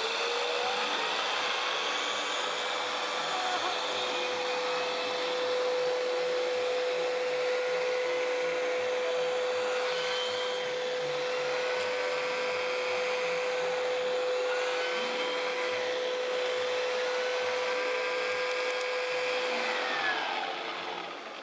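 Bissell PowerGlide Lift-Off Pet Plus vacuum running with its pet turbo eraser tool worked over upholstery. The motor whines up to speed at the start and then runs with a steady hum and rush of air. A whine rises and falls as the tool is pushed and pulled, and the motor shuts off about twenty seconds in.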